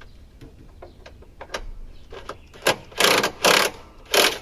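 Belt-cover bolts on a Cub Cadet mower deck being tightened with a ratcheting tool: a few light clicks, then four short ratcheting bursts in the last second and a half.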